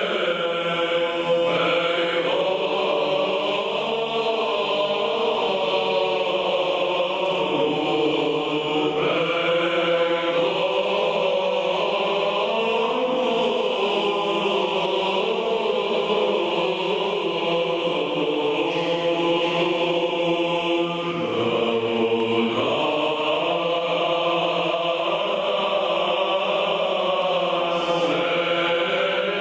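Male choir singing Byzantine chant a cappella in the first mode (glas I): a moving melody over a steady held drone note.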